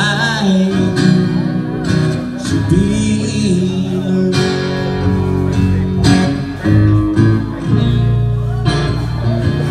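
Live country band playing a guitar-led instrumental passage between sung lines.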